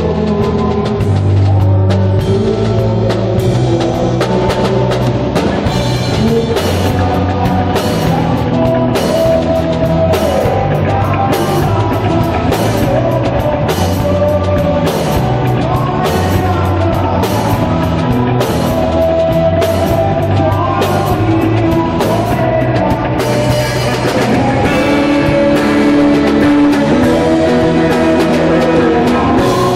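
Live rock band playing loudly, drum kit prominent, with a steady beat of drum hits under the instruments.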